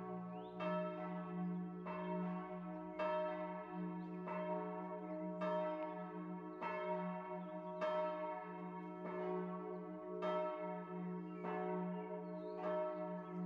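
Church bell ringing, with a stroke about every second and a quarter. Each stroke rings on into the next over a steady low hum.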